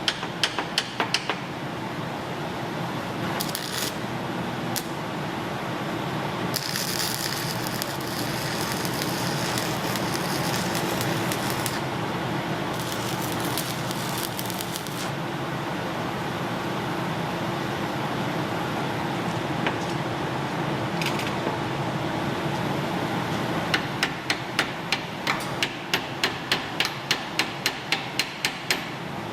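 Workshop noise: a steady hum with stretches of hiss, a few sharp clicks in the first second, and near the end a run of sharp taps, about three a second.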